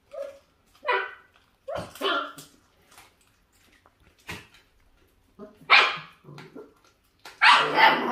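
Dog barking in short, separate barks, a few scattered early and louder ones close together near the end, as a puppy edges toward another dog feeding on raw meat.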